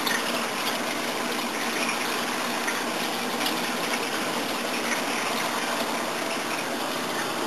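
Steady rushing and splashing of water circulating in a saltwater reef aquarium.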